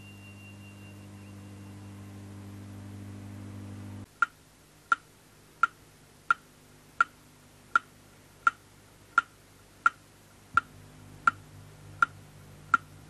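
A low steady hum that cuts off abruptly about four seconds in, followed by thirteen evenly spaced sharp ticks, about three every two seconds, each with a brief high ring.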